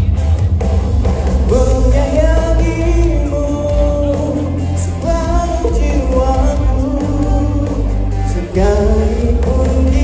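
Man singing a melody into a handheld microphone over loud amplified backing music with a heavy bass, through a hall's PA system.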